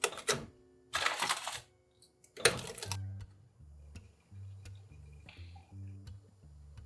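Three short bursts of handling noise as dumplings are set into a bamboo steamer basket, then quiet background music with a low bass line.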